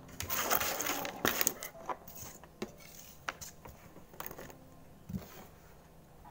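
Handling noise close to the microphone: a stretch of rustling in the first second or so, then scattered clicks and light knocks.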